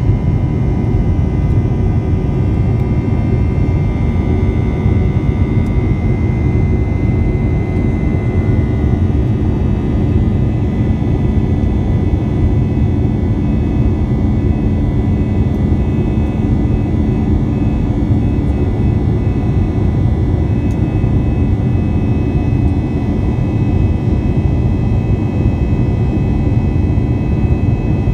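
Cabin noise of an Airbus A321 climbing after takeoff, heard by the over-wing window seat: a steady jet engine roar with a heavy low rumble and a few faint steady whining tones.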